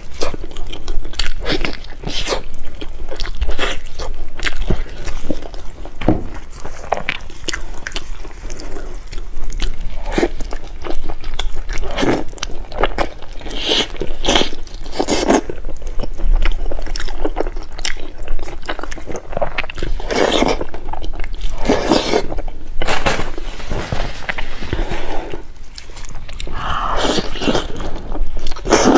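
A person biting into and chewing sauce-coated fatty pork held in the hands, in a rapid, irregular run of short bites, crunches and chewing sounds.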